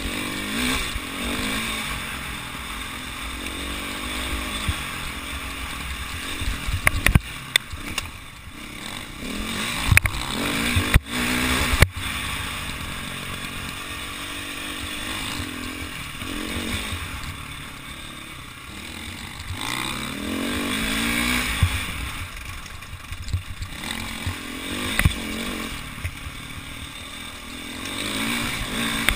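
Enduro dirt bike's engine heard from a camera mounted on the bike, revving up and down with the throttle and gear changes over rough ground. Several sharp knocks come in a cluster about a third of the way in.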